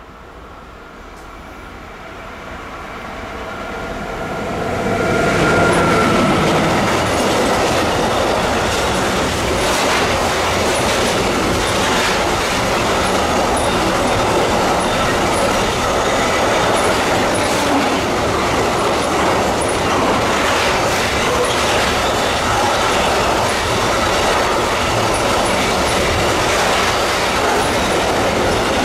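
A long train approaching and passing close by: a hum from the locomotive grows louder over the first five seconds, then a steady rumble of wagons with rhythmic clickety-clack over rail joints and faint high wheel squeaks that runs on past the end.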